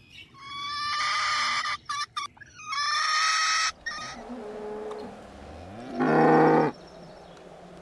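Animal calls: two long, high-pitched cries one after the other, then a shorter, deeper and louder call about six seconds in.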